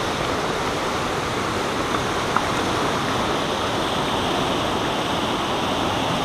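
River rapids: whitewater rushing steadily over rocks, with one faint click about two seconds in.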